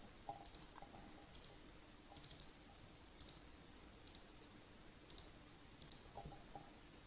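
Near silence with a few faint computer mouse clicks: a couple just after the start and a small cluster about six seconds in.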